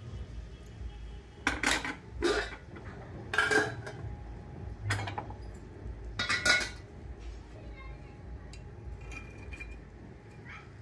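Metal kitchen utensils clanking against a kadai, about half a dozen sharp clanks in the first seven seconds, over a low steady hum.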